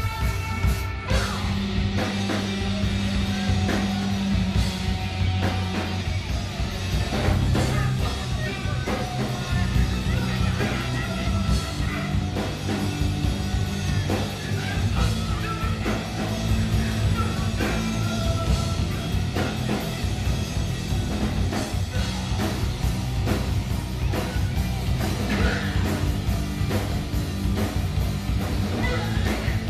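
Live rock band playing loud, with distorted electric guitars and a drum kit driving a steady beat.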